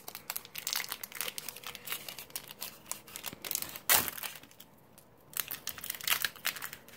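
Foil wrapper of a Pokémon XY Phantom Forces booster pack crinkling and tearing as it is ripped open by hand. It is a run of irregular crackles, with one louder crackle about four seconds in.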